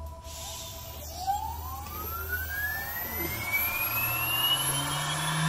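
Phantom CNC router's spindle spinning up after the program is started: a whine that begins about a second in and rises steadily in pitch, with the machine's hum growing louder beneath it.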